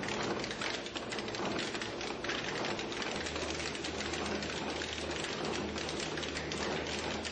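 Carbon-fibre braiding machine running, its bobbin carriers clattering in a rapid, steady stream of clicks as it weaves carbon-fibre strands into a tube over a form. A low hum joins about three seconds in.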